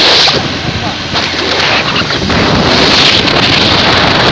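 Loud wind noise buffeting the microphone of a phone held out from a moving motorcycle, swelling at the start and again about three seconds in.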